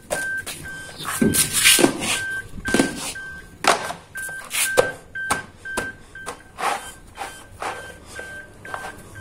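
A car's warning chime beeping steadily, about two beeps a second, over irregular scrubbing and rustling as the cabin floor is wiped clean.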